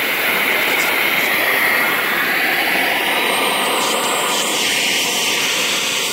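Steam and hot water blasting from a fire-tube boiler's opened blowdown valve: a loud, steady rushing hiss. The blowdown flushes any debris out of the boiler.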